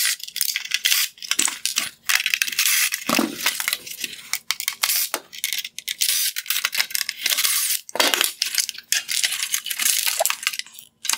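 Cordless drill/driver backing Phillips head screws out of a plastic headlight housing, with dense, irregular clicking and rattling of the hard plastic parts.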